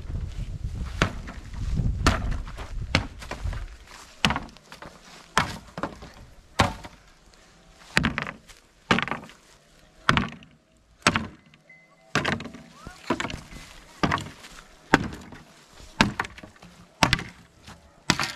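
Repeated heavy blows on wood, about one a second with a short pause near the middle, as boards of an old wooden fence are knocked loose.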